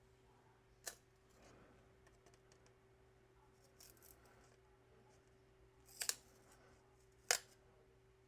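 Sharp snips of a cutting tool clipping the leftover production tabs off a circuit board. There is one snip about a second in, a quick pair around six seconds, and a last, loudest one a little after seven seconds.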